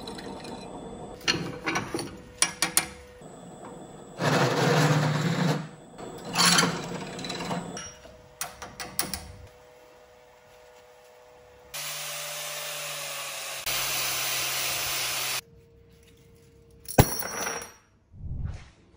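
Drill press boring holes through thin stainless steel sheet, in short noisy cutting bursts and two steady runs of motor and bit, with clicks and knocks of metal being handled between them. A sharp knock near the end is the loudest sound.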